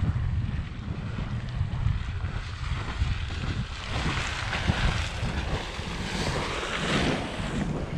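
Geyser erupting from its hot-spring pool. The hissing, splashing spray of water and steam gets stronger about halfway through, with wind buffeting the microphone throughout.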